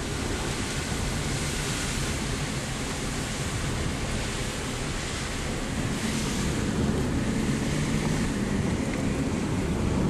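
Steady rushing noise of a car driving along a wet road, with wind on the microphone; it grows a little louder about six and a half seconds in.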